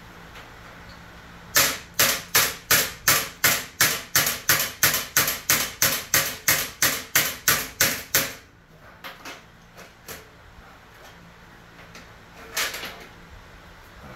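A hammer striking about nineteen times at a steady pace of roughly three blows a second, then stopping. A few light knocks follow, and one more knock comes near the end.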